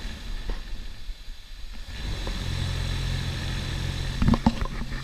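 Industrial electric fan running with a steady low hum that grows louder about two seconds in; it is kind of noisy. A few sharp knocks sound near the end.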